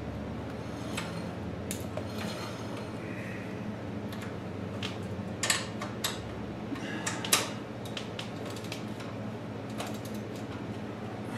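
Hand tools clicking and clinking on metal in scattered, irregular strokes as the go-kart's disc brake caliper bolts are tightened, the sharpest clicks about five and a half and seven and a half seconds in, over a low steady hum.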